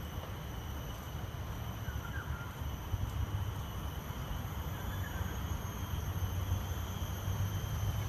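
Outdoor ambience: a steady low rumble with a faint steady high tone above it, and faint bird chirps twice, about two and five seconds in.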